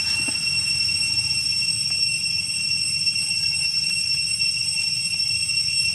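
Steady high-pitched drone of insects, holding several pitches without a break, over a low steady hiss.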